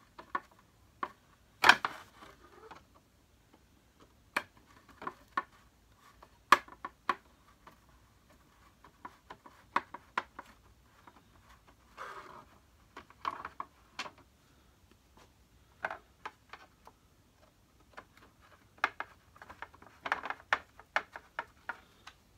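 A long metal screwdriver working slowly at a Hoover Turbo Power upright's green plastic base housing to free a part: irregular clicks, taps and short scrapes of the blade against plastic. The two loudest clicks come about a second and a half and six and a half seconds in.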